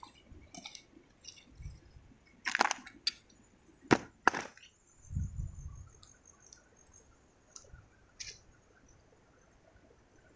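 Scattered scrapes, clicks and squelches of wet sandy mud being scooped up and handled by hand, loudest between about two and a half and four and a half seconds in. A faint thin high tone comes and goes in the second half.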